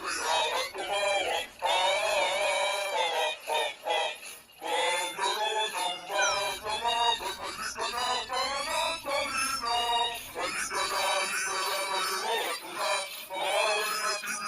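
Heavily effects-processed, synthetic-sounding singing voices over music, warbling up and down in pitch, with brief breaks.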